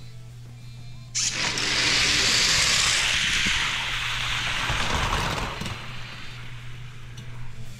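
Six Hot Wheels die-cast cars let go from the starting gate about a second in, rolling fast down an orange plastic race track: a sudden rushing rattle of small wheels on plastic that holds for a few seconds, then fades as they reach the finish.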